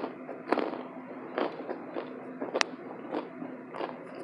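Close-miked crunching of a burnt KB cornstarch brick being bitten and chewed: dry, crisp crunches about every half second, with one sharp crack about two and a half seconds in.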